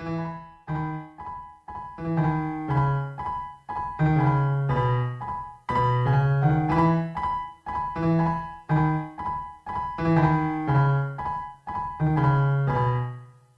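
Backing music played on piano: a gentle melody of separate notes in short phrases with brief pauses between them.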